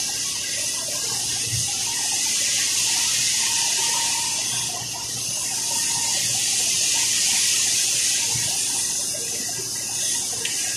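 Lotus electric drill running steadily on a test run after repair of its sparking fault, a continuous hissing whir with small swells in level.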